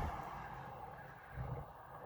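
Low rumble of a vehicle fading away, with a brief low bump about a second and a half in.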